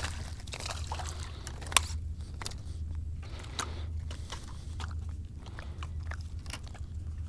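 Scattered light clicks and taps from fishing tackle being worked on a boat while a small trout is reeled in, with one sharper click a little under two seconds in, over a low steady hum.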